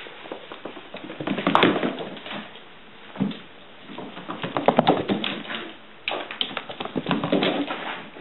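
A kitten's claws clicking and skittering on a hard floor as it runs, in about three quick flurries of taps, with a single knock in between.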